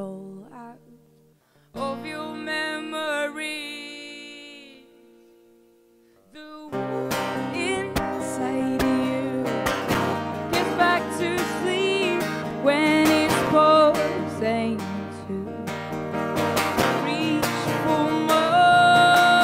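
Woman singing to her own acoustic guitar. About two seconds in a single strummed chord rings out and slowly fades, then from about seven seconds in she strums steadily and sings the melody over it.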